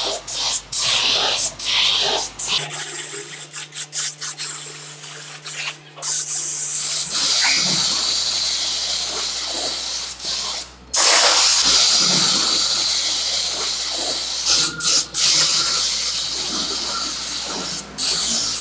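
Compressed-air spray gun hissing as it sprays grey paint onto steel scooter wheel rims. It starts in short bursts for the first few seconds, then runs in long continuous passes with brief breaks about 6 and 11 seconds in.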